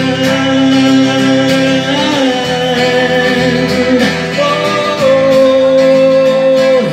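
A man singing long held notes without clear words, over a strummed acoustic guitar, played live through a small PA.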